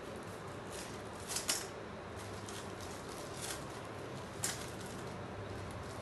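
A few light clicks and knocks from a toddler's metal push walker being tilted and shifted on foam floor mats, over a steady low hiss.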